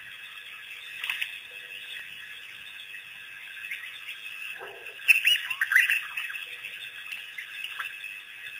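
African wild dogs giving high-pitched, bird-like twittering calls: a short call about a second in and a louder flurry of gliding chirps about five to six seconds in. A steady high background drone runs underneath.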